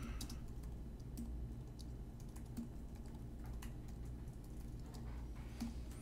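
Faint, irregular keystrokes on a computer keyboard as a short name is typed.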